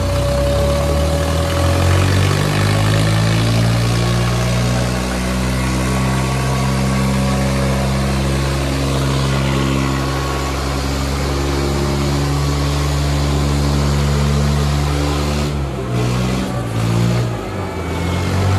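Diesel tractor engines, a Kubota 5501 and a New Holland 3600, running at full throttle under heavy load as the two tractors pull against each other in a tug-of-war. The engine note climbs slightly at the start, holds steady and hard, then wavers and dips briefly near the end.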